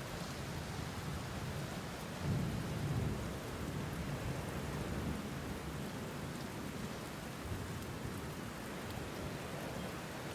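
Steady rain, with a low rumble of thunder swelling a couple of seconds in and then easing off.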